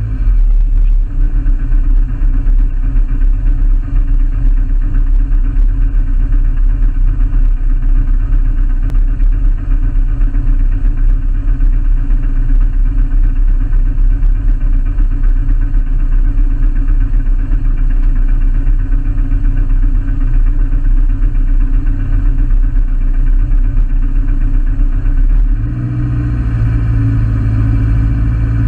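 Peugeot 106 rally car's engine idling steadily, heard from inside the stripped cabin. About 26 seconds in, the engine note steps up and is held at higher revs, as for the stage start.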